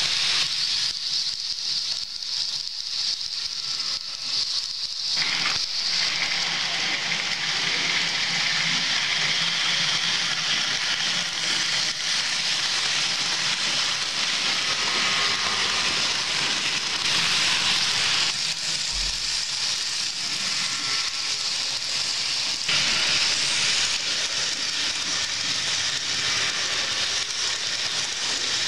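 Minitrix N-scale ICE model train running along the track close by: a steady hissing rattle of small wheels on the rails with a faint electric motor whine.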